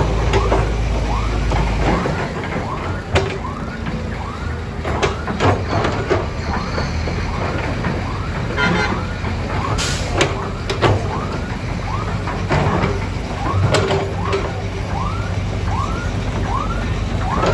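Heavy machine's diesel engine running during mud loading, with scattered clanks and knocks, and a short rising-and-falling chirping tone repeating a little more than once a second.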